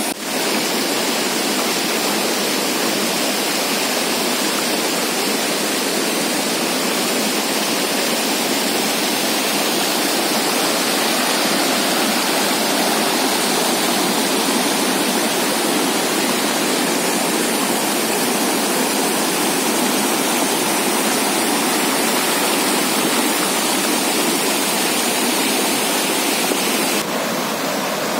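Fast floodwater rushing in a strong current, a loud, steady sound of churning water, with a slight change in sound about a second before the end.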